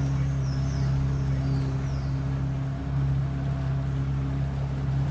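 FPV racing drone's brushless motors running at a steady hum. A few short, high, falling chirps come in over it in the first two seconds.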